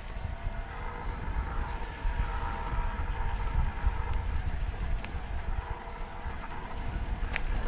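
Steady low rumble of wind and movement on the microphone, with a faint steady hum. Two short sharp clicks come about five and seven seconds in.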